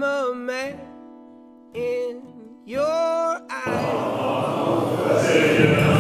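A song with singing over backing music, cut off abruptly about three and a half seconds in by a group of Tibetan Buddhist monks chanting together.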